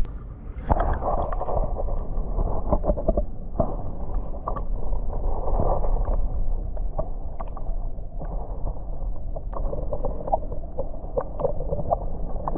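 Muffled sloshing and gurgling of seawater in a rock pool, with scattered small clicks and knocks.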